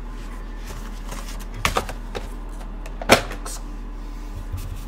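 Handling noise of empty cardboard collection boxes being moved off a tabletop: a few short knocks, the loudest about three seconds in.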